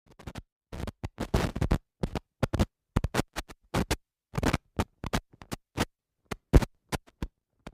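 A rapid, stuttering run of short record-scratch noises chopped apart by dead-silent gaps, an intro sound effect.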